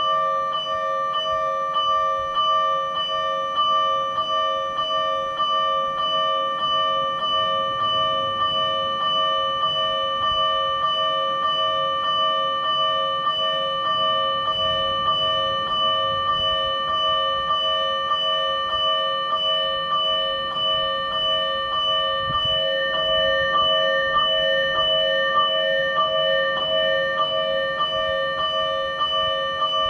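Fire-engine siren amplifier (MK10 / TWS-5102V) sounding the electronic warning bell used by the Tokyo Fire Department: a rapid, even train of metallic bell strikes whose ringing overlaps into a continuous clang.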